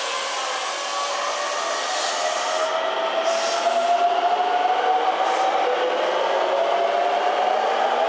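Keikyu 600-series electric train pulling out of the platform: its traction motor whine rises in pitch as it accelerates, climbing twice, under a haze of running noise, with a short hiss about three seconds in.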